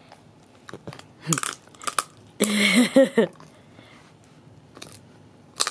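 Cavalier King Charles spaniel crunching on a dehydrated rabbit ear: a few separate sharp crunches spread through. A short voice sound about two and a half seconds in is the loudest thing.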